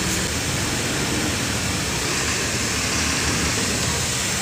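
Truck engine running steadily with a low hum, with road and wind noise, heard from inside the cab.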